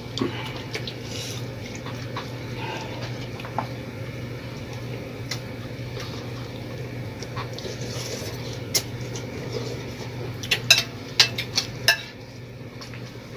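Spoons and forks clinking and scraping on plates as people eat, with a quick run of sharper, louder clinks a little before the end. A steady low hum runs underneath.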